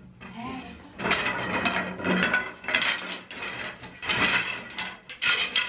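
Wooden bed slats clattering and knocking in a run of irregular bursts as a collapsed slatted bed frame is worked back into place.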